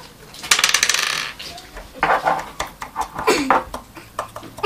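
Small tools and a circuit board being handled on a wooden desk, clattering and clicking: a quick dense rattle about half a second in, then scattered clicks and knocks.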